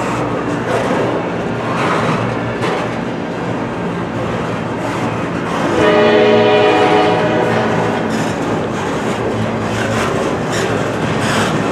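Norfolk Southern freight train rolling past, its wheels clattering over the rail joints throughout. About six seconds in, the lead locomotive's air horn sounds a chord for about two seconds, the loudest moment, then dies away.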